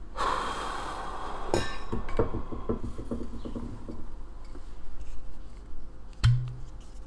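Rustling and light clinks and knocks of a glass wine bottle being picked up and handled, then a cork drawn from its neck with a sharp, hollow pop near the end.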